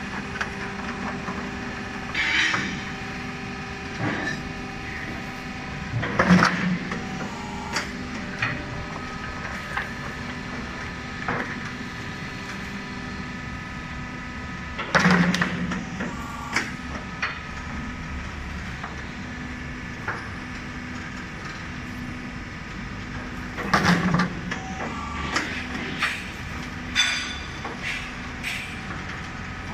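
QTJ4-18 hydraulic cement block machine running with a steady hum, its automatic pallet feeder cycling about every nine seconds with a loud clatter of wooden pallets and steel feeder parts, plus smaller clicks between.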